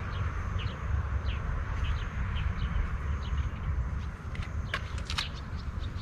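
Outdoor summer ambience: a steady high hiss with short chirps repeating about every half second, over a low rumble. A few sharp clicks come in the second half.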